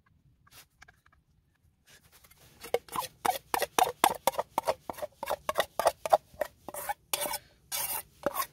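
A spoon scraping stew and dumplings out of a metal Trangia saucepan into a bowl: a quick run of rasping scrapes against the pan, about three or four a second, starting a couple of seconds in.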